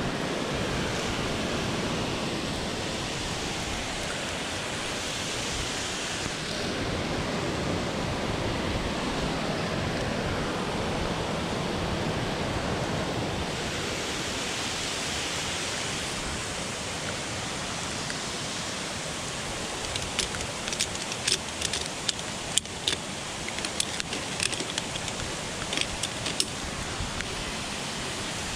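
Steady rushing noise throughout, with a run of sharp clicks and taps in the last several seconds.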